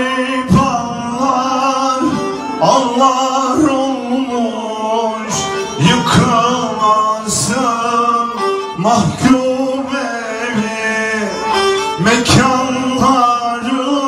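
Kemane, a small upright bowed folk fiddle, playing a Turkish folk tune over deep drum strokes. A man's voice starts singing about ten seconds in.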